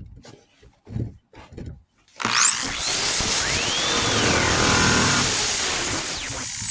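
A few light handling knocks, then about two seconds in a power sander starts up with a rising whine and runs steadily on the body panel. Its high whine slowly drops in pitch near the end.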